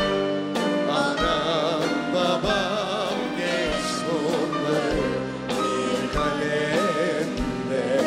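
Live band music with singing: a vocal duet over a drum kit and brass, with long wavering held notes and scattered drum strikes.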